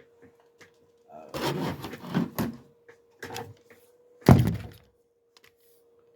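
Handling noise: rustling and a few light knocks, then one loud, sharp thump about four seconds in. A faint steady hum sits underneath.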